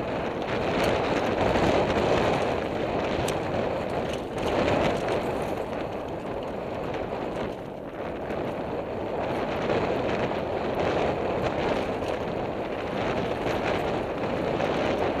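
Downhill mountain bike descending rocky singletrack at speed: a steady rush of tyre and air noise, with constant clattering as the wheels hit loose stones and the bike rattles.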